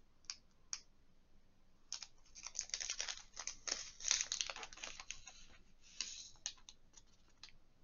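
Quick, irregular light clicking and plastic rustling from hands handling diamond-painting supplies: tiny resin drills and their plastic packaging. A couple of faint clicks come first, then a steady run of them from about two seconds in, easing off near the end.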